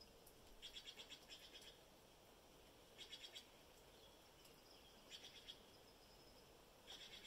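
Faint, high, rapidly pulsed trills from a small calling animal, in four short bouts about two seconds apart, over a faint steady hiss.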